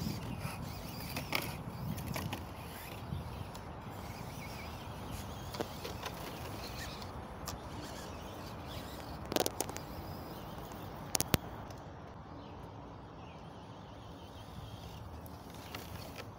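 Small radio-controlled car running across grass and paving, heard faintly over outdoor noise, with a couple of sharp knocks about nine and eleven seconds in.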